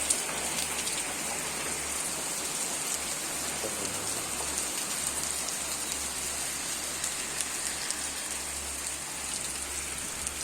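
Rain falling steadily in a downpour, pattering on the ground and surfaces as a continuous even hiss.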